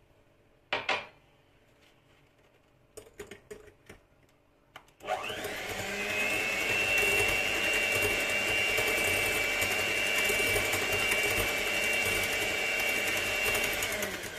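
Electric hand mixer running steadily with a constant motor whine, its beaters mixing runny cake batter in a glass bowl. Before it starts, about five seconds in, there are a few sharp knocks and clicks.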